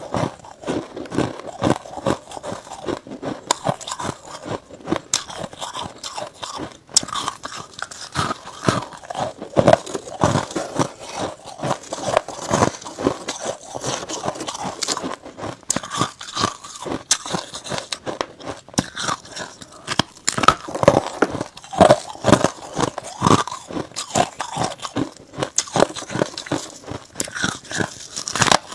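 Bites and chewing of chunks of freezer frost, close to the microphone: dense, irregular crunching throughout.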